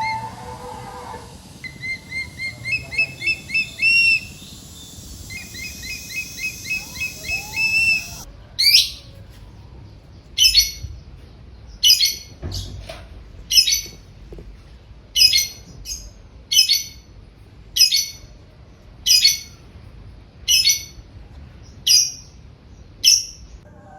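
A bird calling: first runs of quick, rising high chirps, then a long series of short, loud high calls about every second and a half.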